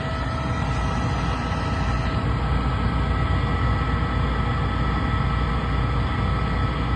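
Trane 20-ton packaged rooftop unit running steadily in gas heat, its motors and airflow making an even rumble and rush with a faint steady whine. It is running normally on a new inducer motor and igniter.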